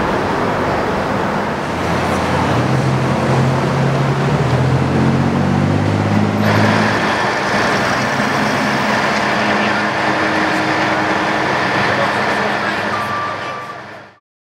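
Roadside traffic noise: vehicles passing on the street, with a nearby engine humming steadily through the first half. The sound changes abruptly about six and a half seconds in to another stretch of traffic noise, then fades out just before the end.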